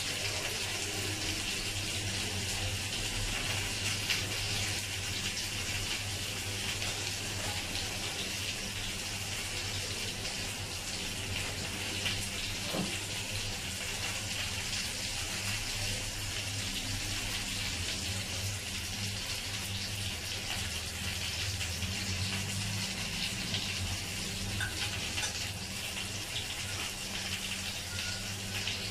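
Lamb chops sizzling steadily in a nonstick frying pan over a gas burner, with a low steady hum underneath.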